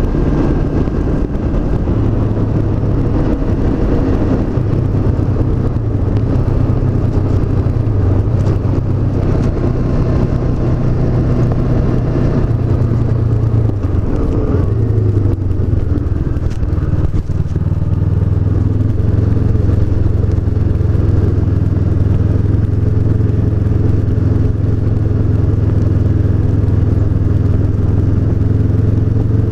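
Honda CB500X's parallel-twin engine running steadily while the motorcycle is ridden. The engine note changes and dips briefly around halfway, then settles into a steady drone.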